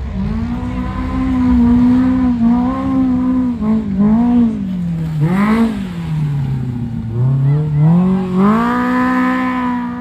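Side-by-side UTV engine revving hard under heavy throttle. Its pitch holds high, sags, jumps up and back down quickly about halfway through, then climbs again and holds high near the end.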